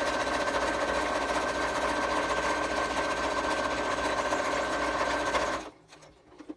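Electric sewing machine running at a steady speed, stitching a seam, then stopping abruptly near the end.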